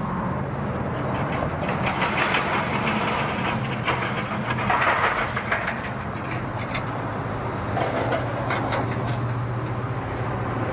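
Pickup truck engine idling steadily, with intermittent rattles and clatter over it.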